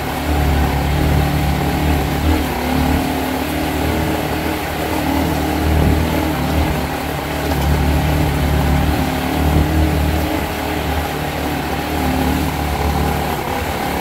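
Motorcycle engine running at low speed, heard from the rider's seat, its note swelling and easing every second or two over a steady rushing noise.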